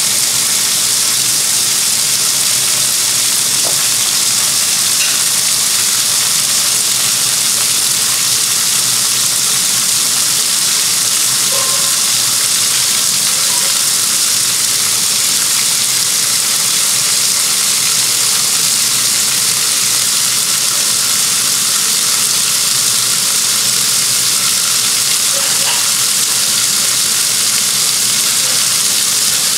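Water filling the tub of a Whirlpool-built direct drive top-load washer in the rinse fill: a steady rushing hiss of the fill stream pouring onto the wet load.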